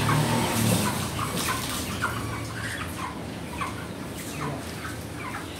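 Chickens clucking: short, scattered calls from live birds held in crates.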